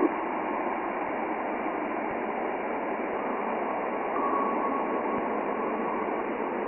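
Saturn's auroral radio emissions recorded by the Cassini spacecraft and converted to sound: a steady hiss like radio static, with a faint tone in the middle.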